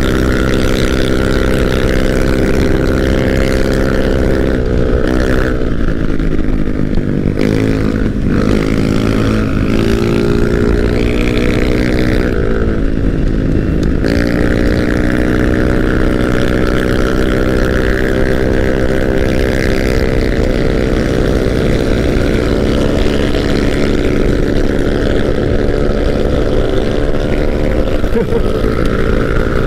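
Motorcycle engine running at road speed, its revs dropping and picking up again several times as the throttle is eased and reopened, then climbing sharply about halfway through. Wind rumbles on the microphone underneath.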